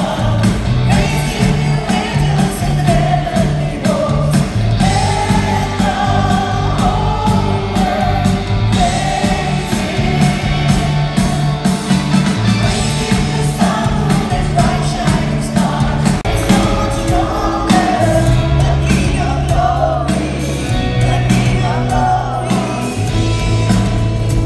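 Live worship band playing a praise song over a loud hall sound system: sung melody with several voices over bass guitar and drums. The bass line shifts to lower, heavier notes about three quarters of the way through.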